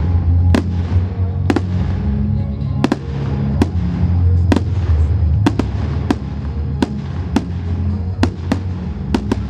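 Fireworks going off in a public display: about a dozen sharp bangs at irregular spacing, roughly one a second, over a steady low rumble.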